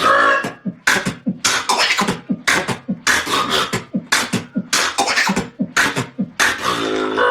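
Human beatboxing: a man's mouth and voice imitating a drum kit, with sharp snare-like and hi-hat-like strokes in a steady fast rhythm over low kick sounds. Near the end the rhythm gives way to a long held voiced tone.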